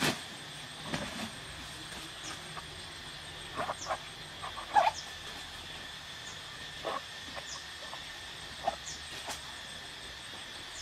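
Steady high insect drone of tropical forest, with faint short high chirps recurring every second or so. Over it come a few short rustles and knocks as a person moves about in dense undergrowth, the loudest about five seconds in.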